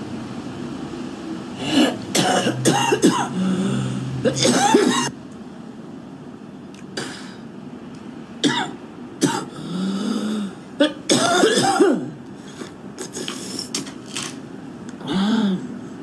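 A woman's smoker's cough: a hacking fit of repeated coughs with hoarse throat noise about two seconds in, then single coughs and throat clearing, another short fit about eleven seconds in and a last throat-clearing near the end.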